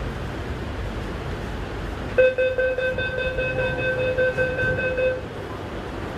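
Delhi Metro carriage's electronic door-warning buzzer: a steady buzzing tone of about three seconds, starting about two seconds in, over the carriage's low steady hum.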